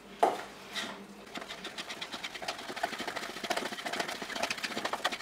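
Metal spoon beating thick walnut and egg-yolk satsivi sauce in a small stainless steel pot, clinking rapidly against the pot several times a second as broth is worked in. One sharper clink just after the start.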